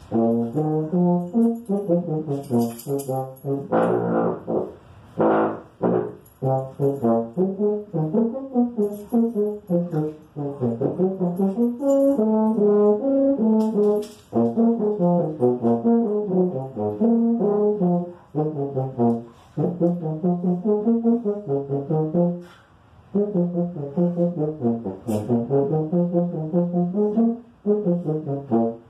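A low brass instrument playing a melody in held notes that step up and down, in phrases with short pauses between them.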